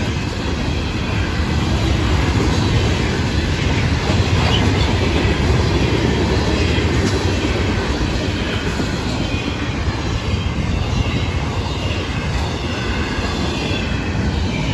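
Florida East Coast Railway freight train's boxcars and intermodal well cars rolling past on the rails with a loud, steady rumble, with faint wheel squeal now and then.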